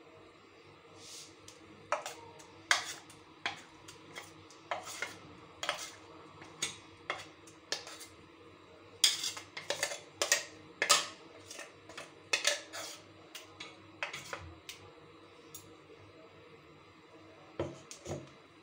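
Steel spoon knocking and scraping against a stainless-steel mixer-grinder jar and steel bowl in a string of irregular clinks, as thick ground moong dal batter is scraped out of the jar. The clinks pause for a couple of seconds before a last few near the end.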